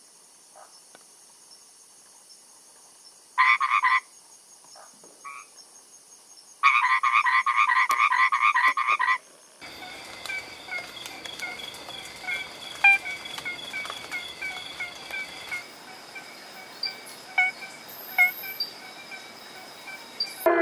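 Green treefrogs calling in two recordings. In the first, a pulsed, rattling call comes once briefly about three and a half seconds in and again for about two and a half seconds near seven seconds. In the second, which starts about halfway through, there are many short repeated call notes over a steady high buzz.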